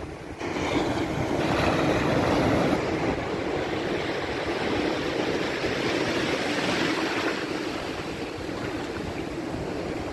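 Sea surf: small waves breaking and washing over the shallows, a steady rushing sound.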